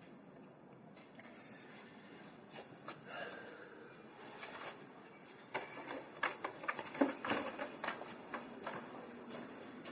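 A run of light, sharp clicks and knocks in irregular quick succession from about halfway through, over quiet room tone with a soft rustle before it.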